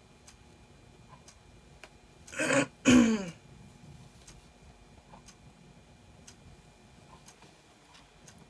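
A woman clearing her throat twice in quick succession about two and a half seconds in, the second time with a falling voiced grunt. Otherwise only faint small ticks from hand-sewing.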